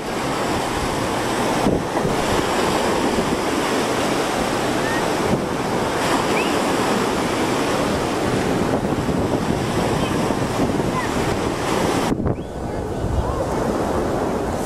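Small surf breaking and washing up on a sandy beach in a steady rush, with wind buffeting the camcorder microphone. The sound dips briefly about twelve seconds in.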